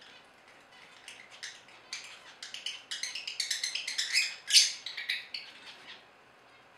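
Black-masked lovebirds chattering in a rapid run of short, sharp, high chirps that grow denser and louder through the middle, peak about four and a half seconds in, then die away.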